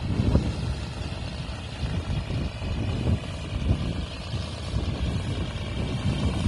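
Patrol boat running at sea: a low engine and water rumble with irregular gusts of wind buffeting the microphone.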